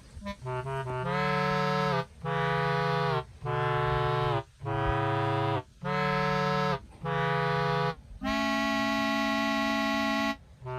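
Background music: a few quick short notes, then a series of held chords about a second each, ending on a longer held chord about two seconds long.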